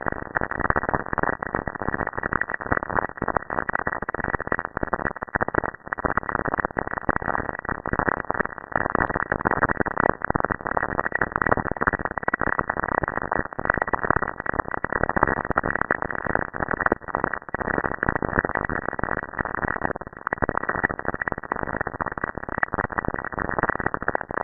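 Saturn's radio emissions recorded by a spacecraft and played back as sound: a dense, even crackling static made of countless fine clicks, with no steady tone.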